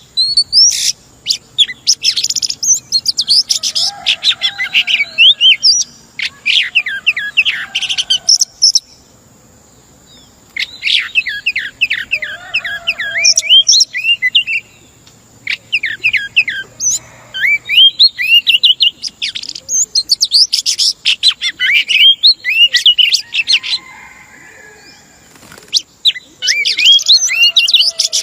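Female oriental magpie-robin singing rapid runs of varied sweeping whistles and chirps in phrases broken by short pauses. This is the female's song that bird keepers use to excite males into singing.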